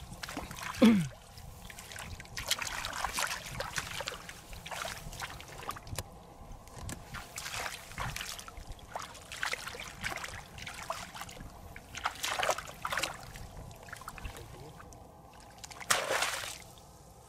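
Hands splashing and sloshing in shallow muddy paddy water in irregular bursts, feeling through the mud for snakehead fish, with a strong splash near the end. About a second in comes a brief loud sound that falls in pitch.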